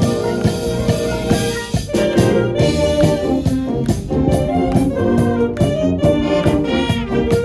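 High school marching band playing: brass sustaining a tune over a steady run of snare and bass drum strikes.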